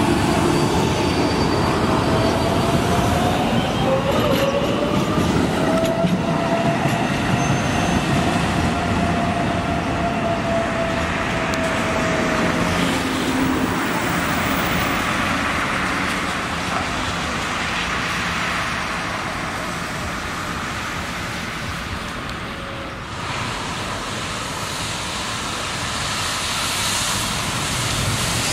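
MBTA Green Line light-rail train (Kinki Sharyo Type 7 LRV) running past on street track, a steady rumble of wheels on rail. A high-pitched whine rises a few seconds in and holds for about eight seconds.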